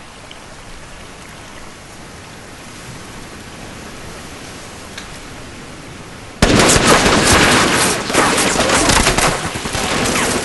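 Steady rain hissing on jungle foliage, then about six seconds in a sudden, loud burst of heavy automatic gunfire: many rapid shots at once, lasting to the end.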